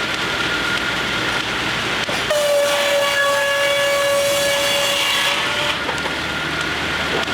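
A steam whistle blows one long, steady note for about three seconds, starting a couple of seconds in. Under it runs the steady noise of steam-powered sawmill machinery.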